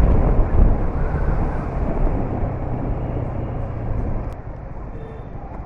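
Yamaha sport motorcycle under way at around 45 km/h: a low wind rumble on the rider's microphone with the engine running beneath it. It drops in level about four seconds in as the bike eases off.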